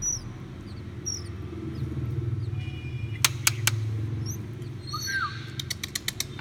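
Oriental magpie-robin nestlings giving a few faint, thin begging cheeps, one louder gliding call about five seconds in, over a steady low hum. A few sharp clicks about three seconds in and a quick run of clicks near the end.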